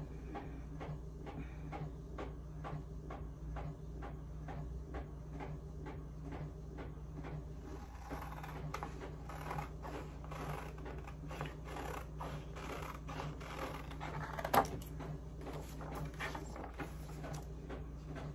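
Scissors snipping through a sheet of printed sublimation transfer paper in a steady run of short cuts, about two to three a second, with one louder snip near the end.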